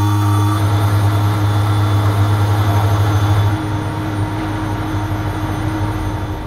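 Steady vehicle engine drone heard inside a bus, with a strong low hum and steady higher tones. It eases off somewhat about three and a half seconds in.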